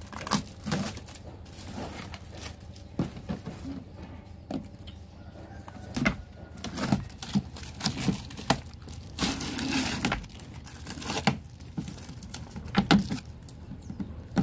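Hands handling a plastic carrier box with a wire-mesh and cardboard lid: scattered sharp clicks and rustling, with a longer rustle about nine seconds in.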